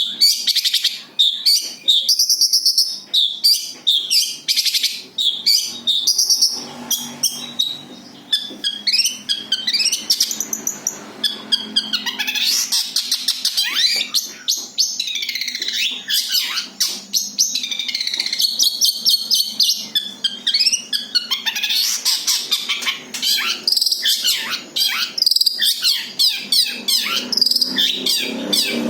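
Long-tailed shrike (cendet) singing its own natural song: a rapid, continuous run of varied high chirps and scratchy notes, with no mimicked songs of other birds.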